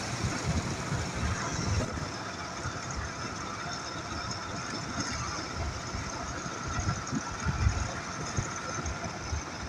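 Ural motorcycle running while being ridden, with irregular wind buffeting on the microphone.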